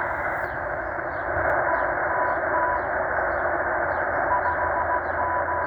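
Shortwave static hiss from a Tecsun H-501X receiver in upper sideband, with the M12 numbers station's Morse code keyed through it as faint on-off beeps at about 1 kHz. Faint short falling bird chirps repeat about twice a second above the radio sound.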